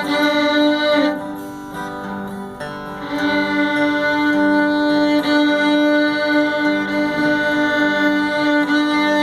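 Solo fiddle imitating a train running on the track: a steady drone of bowed strings. About a second in it drops back briefly, then rhythmic, evenly pulsed bow strokes carry on over the drone like wheels on rail joints.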